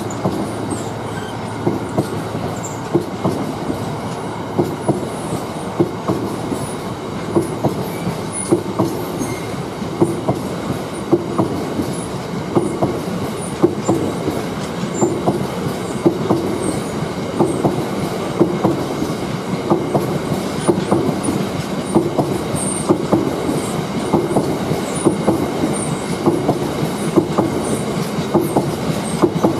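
Freight train of biomass hopper wagons rolling steadily past, wheels clattering over the rail joints in an even rhythm over a continuous rumble.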